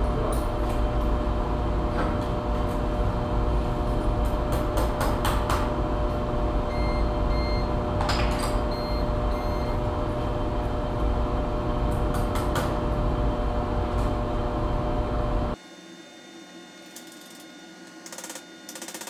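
Daisy-chained CyberPower UPS units switching to battery after mains power is pulled: a steady electrical hum with scattered relay clicks, and a few short high beeps of the on-battery alarm about halfway through. The hum drops abruptly much quieter near the end.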